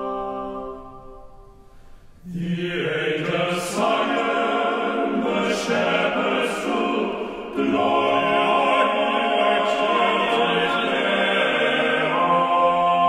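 Slow choral music of sustained voices. A held chord fades away, then the singing comes back in about two seconds in and grows louder about halfway through.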